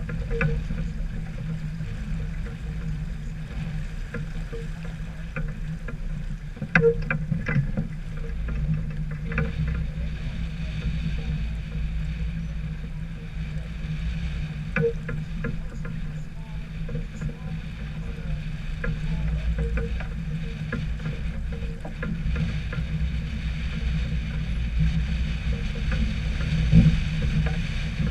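Sailboat under way: steady rumble of wind and water with a low hum, and scattered light clicks and knocks.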